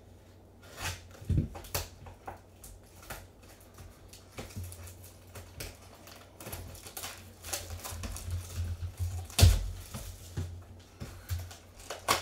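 A cardboard trading-card box is opened and its foil packs are handled on a table: scattered rustles and clicks, with a few knocks, the loudest about nine and a half seconds in.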